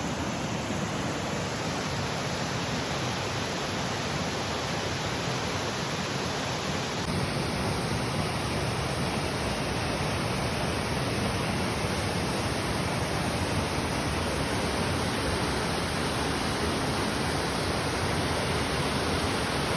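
Waterfall pouring: a steady rush of falling water, stepping up slightly in loudness about seven seconds in.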